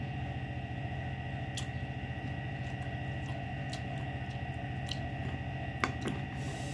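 A metal fork and spoon clink faintly against a ceramic bowl a few times, the sharpest clink about six seconds in, over a steady low hum.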